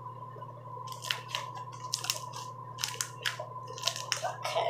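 Homemade slime, mixed with shaving cream and lotion, being squeezed and kneaded by hand: irregular wet crackles and pops, several a second, starting about a second in. A bathroom exhaust fan hums steadily underneath.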